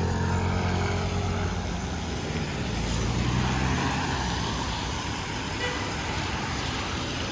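Traffic on a wet street in the rain: a vehicle's engine running close by, fading over the first few seconds, over a steady hiss of rain and wet road.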